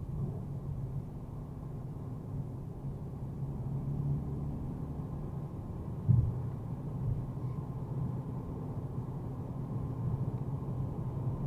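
Mercedes-AMG A35's turbocharged 2.0-litre four-cylinder engine and tyre rumble while driving at steady speed, a muffled low drone, with one short low thump about six seconds in.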